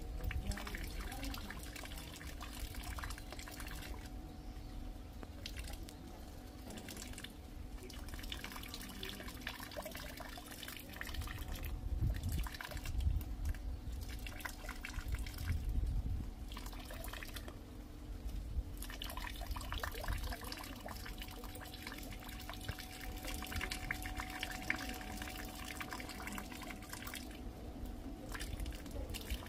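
Rain dripping and pattering, with rainwater trickling, as a steady spatter of irregular drops. A few louder low rumbles come through about halfway in.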